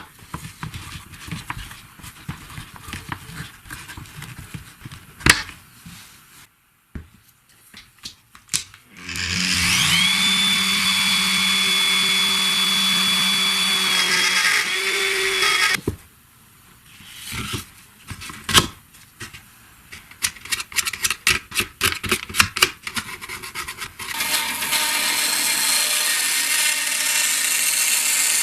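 A small electric power-tool motor spins up with a high whine, runs steadily for about seven seconds and stops. Clicks and knocks of handling come before and after it, and near the end a rougher, noisier running sound starts.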